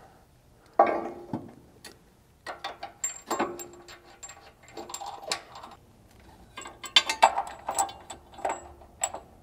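Steel bumper wing brace and its bolts being fitted to a vehicle frame by hand: a knock about a second in, then irregular metallic clinks and clicks as the bracket is shifted and the bolts are pushed in and started, thickest near the end.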